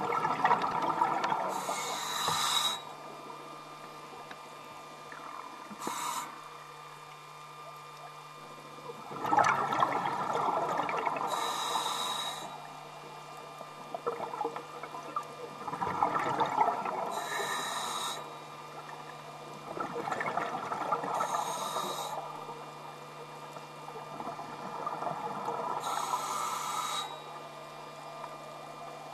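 Scuba diver breathing through a regulator underwater: short hissing inhalations, each followed by a longer burst of bubbling exhaust bubbles, five or six breaths over the span, with a steady low hum underneath.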